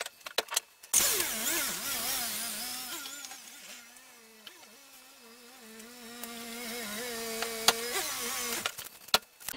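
Honda Civic's D17A 1.7-litre four-cylinder engine running at low speed, its pitch rising and dipping a little. It fades away as the car pulls out of the garage and grows louder again as the car reverses back in, then stops near the end. A few handling clicks come in the first second.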